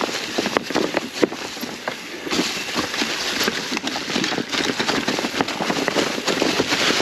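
Mountain bike rolling down a rocky trail covered in dry fallen leaves: the tyres crackle through the leaves over rocks, with many short knocks and rattles from the bike.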